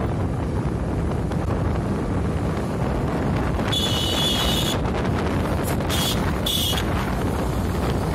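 Wind buffeting the microphone and a steady road rumble from riding along a highway. Three shrill, high-pitched blasts cut through about halfway: one long blast, then two short ones.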